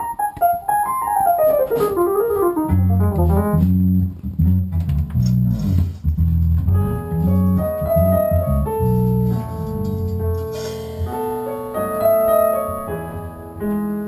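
Electronic keyboard played with a piano sound: a fast run of notes stepping down from high to middle register over the first few seconds, then heavy low bass notes under chords, and later held chords.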